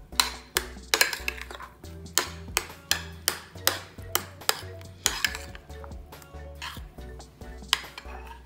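Metal spoon stirring thick mango custard in a glass dish, with repeated sharp clinks and scrapes of the spoon against the glass, a couple a second. Background music with a steady bass line runs underneath.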